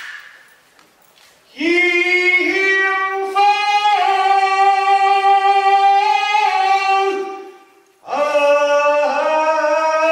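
Beijing opera singing: one voice holds long, high notes in two phrases. The first starts about a second and a half in, and the second follows a short break near the eight-second mark.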